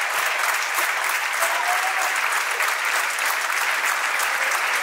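Audience applauding steadily, a dense, even clapping from a large crowd.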